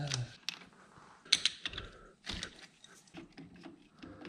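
Scattered clicks, taps and light knocks of wiring connectors, cables and hoses being pulled and handled by hand around a snowmobile's carburetors. The sharpest click comes about a second and a half in.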